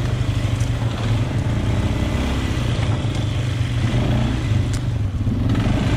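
Polaris Sportsman 500 ATV's single-cylinder four-stroke engine running steadily under way.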